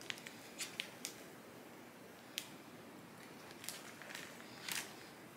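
Faint, scattered crinkles and rustles of a clear plastic zip-top bag being handled as damp moss is packed into it by hand.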